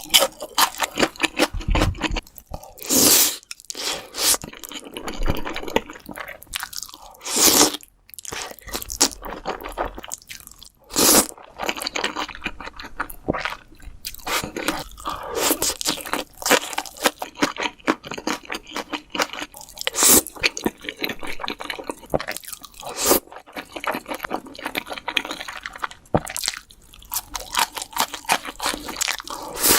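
Close-miked eating sounds: fried chicken crunching and being chewed in big bites, with many irregular sharp crunches and a few louder ones.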